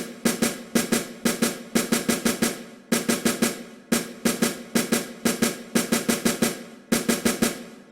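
Snare drum playing alone: a steady, rhythmic pattern of quick strokes with regular accents.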